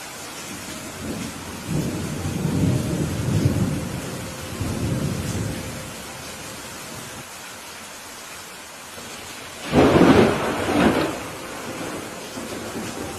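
Steady rain with thunder: a low rolling rumble from about two to five seconds in, then a loud, sharp thunderclap near ten seconds with a second crack about a second after it.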